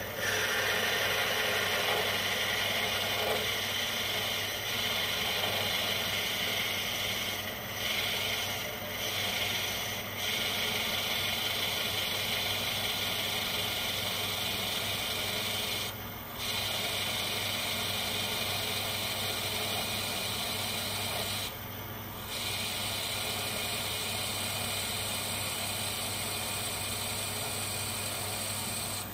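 Metal lathe running while a large twist drill held in the tailstock bores into a spinning bronze brake-cylinder casting: a steady cutting hiss over the lathe motor's hum. The cutting sound dips briefly about five times.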